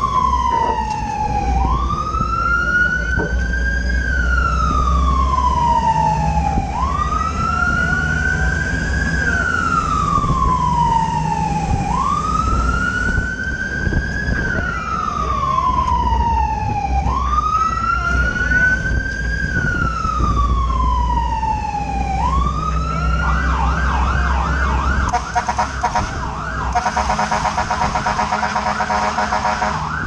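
Fire truck's electronic siren sounding a slow wail, each cycle rising quickly and then falling slowly, about five times. About 23 seconds in it switches to a rapid yelp. The truck's engine and road noise rumble underneath.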